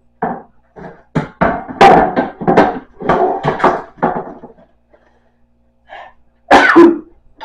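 Metal baking pans clattering and scraping against each other and a wooden cupboard shelf as they are pulled out and moved: a quick run of knocks and clanks, a short lull, then two loud clanks near the end.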